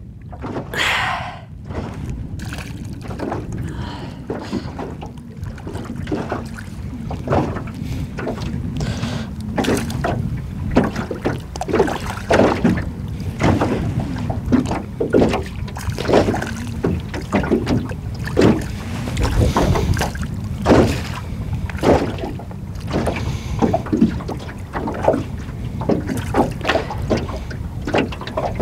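Waves slapping against the hull of an aluminium Alumacraft boat, irregular knocks about once or twice a second over a steady low wind rumble.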